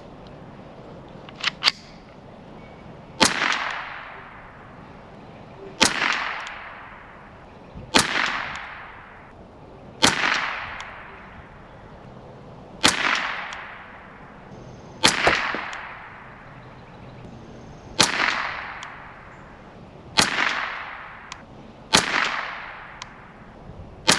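Ruger 10/22 semi-automatic .22 LR rifle firing about ten single shots, spaced two to three seconds apart, each with a short fading echo. A couple of small clicks come before the first shot.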